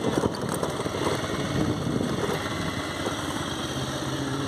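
Motorcycle engine running at low speed. Its note steadies into an even hum over the last second or so.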